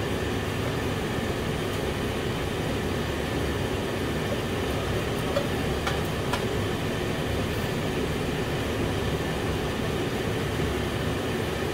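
Steady low droning noise, even throughout, like a running fan or appliance, with a few faint clicks about five to six seconds in.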